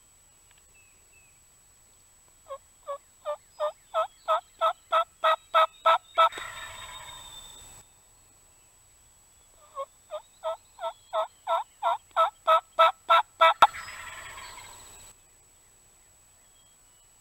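Wild turkey calling: a long series of yelps, about three a second and growing louder, broken off by a rough, rattling gobble. The whole sequence comes twice.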